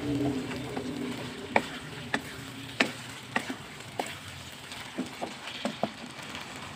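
Wooden spatula stirring a thick chili-paste fish mixture in a wok, the food sizzling steadily while the spatula knocks against the pan in irregular sharp taps.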